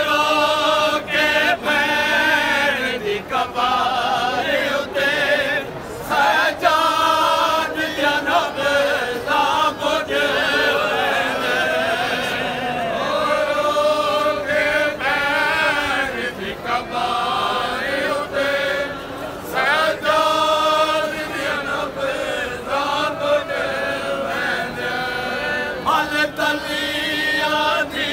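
A group of men chanting a nauha, a Shia mourning lament, together in a melodic unison line, with occasional sharp strikes through it.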